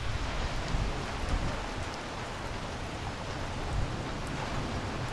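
Steady rain falling on garden foliage and a wet paved path, with a low rumble underneath.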